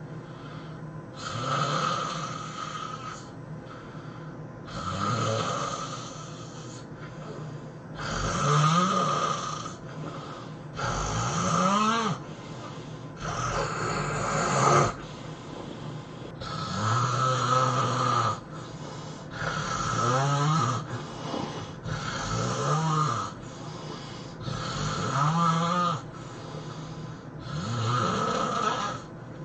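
A person snoring heavily in sleep: about ten loud snores, one every two to three seconds, each rising and then falling in pitch.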